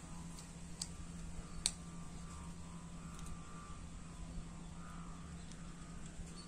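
Faint steady background hum with two light clicks in the first two seconds, from handling the small plastic parts and circuit board of a car key remote as it is put back together.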